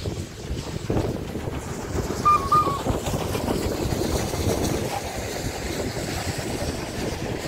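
Steam locomotive hauling a train of passenger coaches past at close range, the exhaust and the rumble of wheels on rails growing louder in the first second and then running on steadily as the coaches go by. A short high note sounds about two seconds in.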